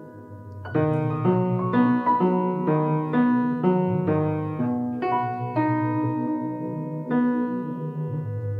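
Ambient instrumental music: a piano plays a steady run of notes, about two a second, coming in under a second in, over sustained low tones.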